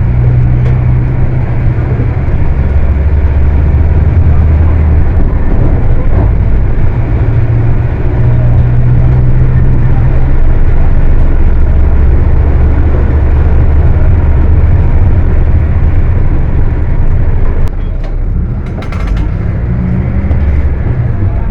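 Volkswagen 17-230 OD bus's diesel engine running loud and high in the revs, its low drone stepping down in pitch twice. The level drops and eases off near the end.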